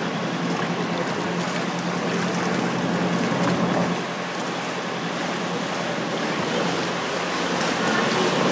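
Tour boat motoring along a city river: a steady rushing of water and air over a low, even engine hum.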